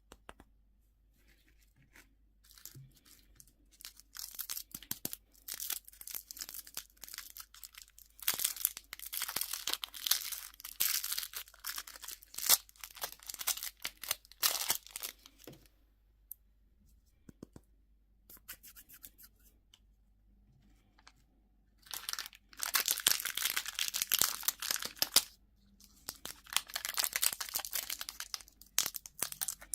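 Candy wrapper being torn open and crinkled by hand, in three long spells of dense crackling with short pauses between.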